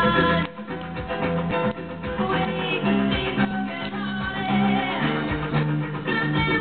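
Background music: plucked acoustic guitar in a Latin or flamenco style.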